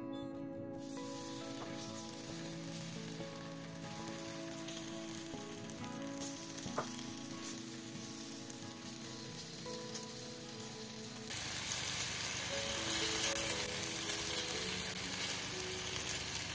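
Potatoes frying in a pan, sizzling steadily. The sizzle starts about a second in and grows louder and brighter about eleven seconds in.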